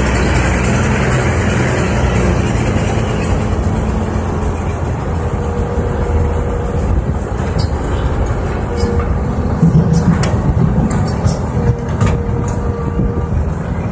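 Diesel engines of a hydraulic excavator and a Hyundai dump truck running steadily as the truck pulls up alongside the excavator to be loaded. A few sharp clicks and knocks come in the second half.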